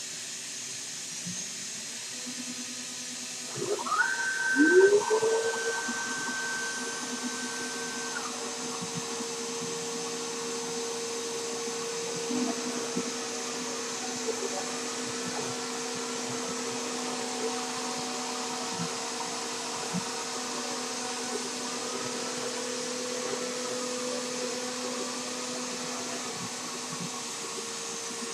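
CNC router's 2.2 kW spindle spinning up with a quickly rising whine about four seconds in, then running at a steady pitch. Later come short rising-and-falling whines every second or two as the stepper-driven axes move the spindle.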